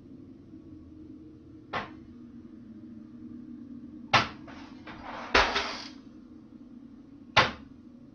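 A louvered cupboard door knocking and rattling as it swings open. There is a light click about two seconds in and a sharp knock around four seconds. A rattling clatter with a loud knock follows just after five seconds, and another sharp knock comes near the end.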